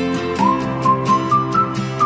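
Background music: a whistled or flute-like melody sliding between notes over held chords and a steady beat.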